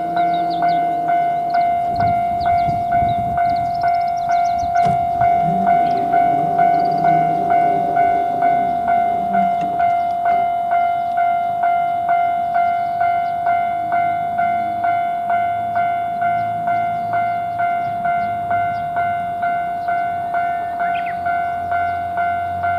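Japanese level-crossing warning bell ringing its electronic "kan-kan" tone at a steady beat of about two strikes a second. A train runs through the crossing underneath it, its rumble strongest in the first half.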